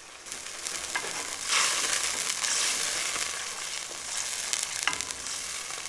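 Chicken and vegetables simmering in stock in a stainless steel pan as a spoon stirs them: a sizzling, bubbling hiss that swells about a second and a half in, with two light clicks, about a second in and near the end.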